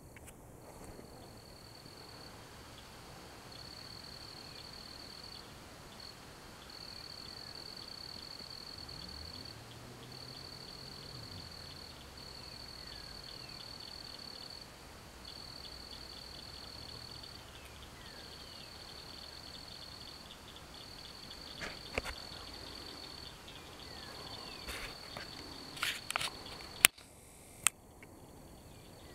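Insects trilling at dusk: one high, steady trill repeated in bursts a second or two long with short gaps, over faint outdoor ambience. A few clicks and one sharp knock come near the end.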